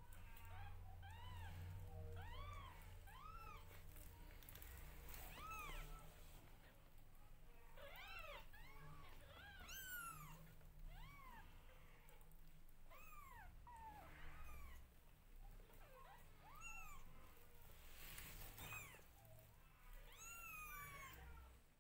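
Newborn kittens mewing: short, high calls that arch up and then down in pitch, coming irregularly, often in runs of two or three, while their mother grooms them.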